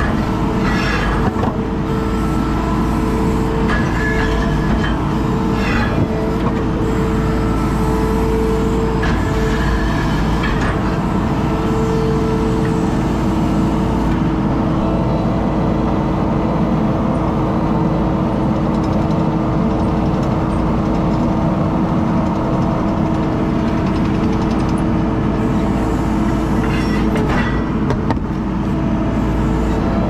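ASV RT-40 compact track loader's diesel engine running steadily, with a steady whine over a low rumble, heard from inside the cab as the machine drives and manoeuvres. A few short clatters sound in the first ten seconds and again near the end.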